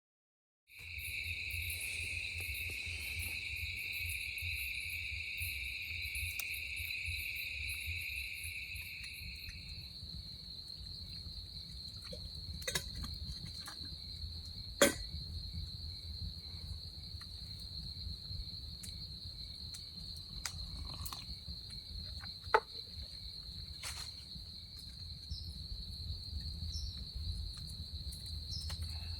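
Crickets chirring in a steady, unbroken chorus, with a second, lower-pitched insect chorus that stops about a third of the way through. A low rumble runs underneath, and two sharp clicks stand out near the middle.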